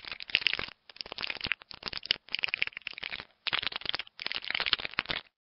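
Dry crackling and clicking sound effect, coming in about six short bursts with brief gaps between them and stopping shortly before the end.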